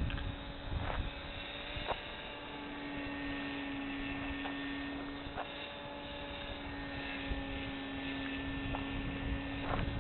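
Steady hum, the electric motor and propeller of a foam RC airplane heard from a distance, holding one pitch with fainter higher tones above it, with a few faint clicks.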